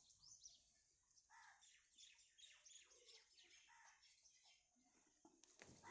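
Faint chirping of small birds, a scatter of short high chirps over near silence.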